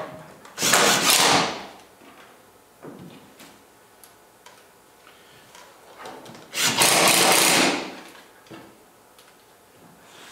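Cordless drill driving screws into wood in two runs of about a second each, the first just after the start and the second about six and a half seconds in, with faint handling clicks between them.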